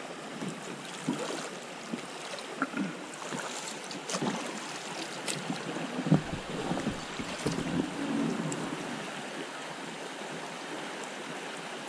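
River water rippling steadily around a drifting boat, with a few light knocks scattered through it.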